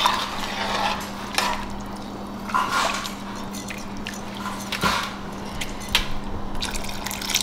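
A metal spoon stirring rice in water in an aluminium pot, with liquid sloshing and a few scattered clinks and scrapes of the spoon against the pot. A steady low hum sits underneath.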